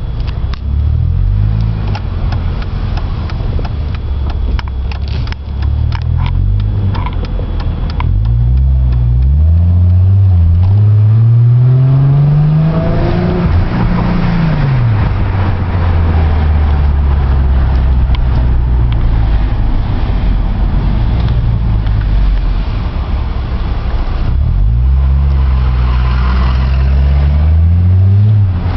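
Mercedes-Benz E320 engine through its custom exhaust, heard from inside the cabin while driving. The engine note climbs in pitch under acceleration about a third of the way in, drops away, holds steady at cruise, then climbs again near the end.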